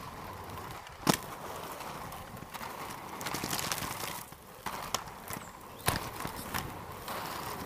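Inline skate wheels rolling over rough asphalt and gravel: a steady gritty rumble broken by sharp clicks and knocks from the skates, loudest about a second in and again near six seconds.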